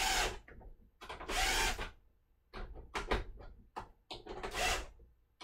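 Screwdriver turning the adjuster screws of a headlight's projector, worked back and forth: repeated scraping bursts, about a second apart, with a run of small clicks near the middle.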